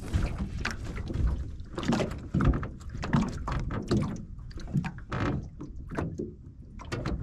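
Irregular knocks and rustling from an angler shifting about on an aluminum fishing boat while working a spinning rod, over a steady low rumble.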